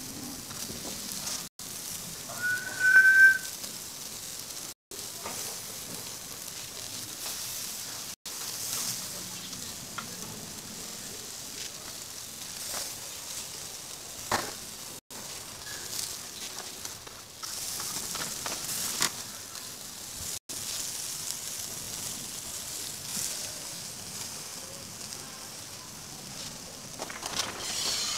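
Sauce-glazed chicken on skewers sizzling over a charcoal grill: a steady high hiss with small crackles. A short, loud high chirp sounds about three seconds in.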